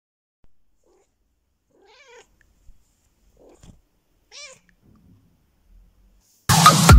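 A cat gives a few quiet, short meows about two, three and a half and four and a half seconds in. Near the end, loud electronic dance music with a steady beat starts suddenly.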